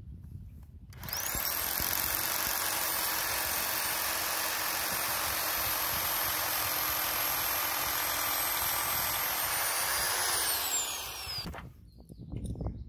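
Corded hammer drill boring into a concrete footing for an anchor bolt. The motor spins up about a second in, runs steadily under load, then winds down and stops when the trigger is released near the end.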